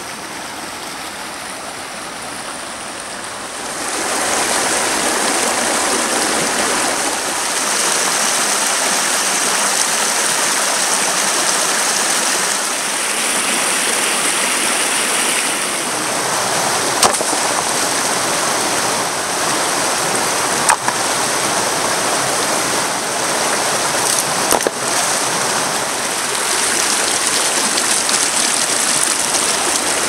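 Shallow rocky creek rushing over stones: a steady water noise that grows louder about four seconds in, with a few sharp clicks in the middle.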